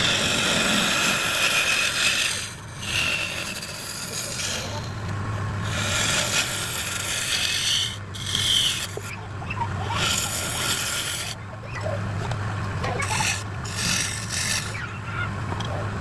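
A tool scraping across wood in long continuous passes of a few seconds each, with brief breaks between them, like wood being rasped or sanded.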